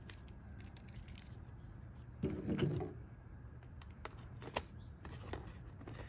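A few light clicks and taps as a marine rocker switch panel and its gasket are handled and fitted into place, over a low steady background. A brief pitched sound, the loudest thing here, comes a little over two seconds in.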